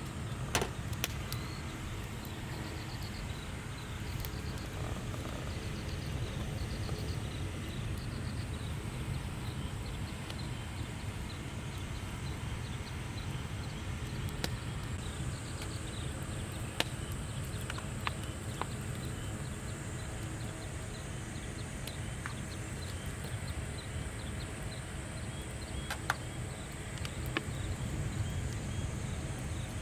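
Outdoor ambience: a steady low rumble with scattered sharp crackles and clicks, short high chirps in the first few seconds, and a steady high insect trill that comes in about halfway.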